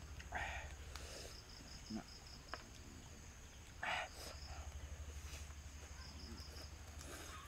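Night insects, crickets, chirping steadily in a fast high pulsing trill over a low hum. Two short, louder eating sounds come through, about half a second in and again about four seconds in.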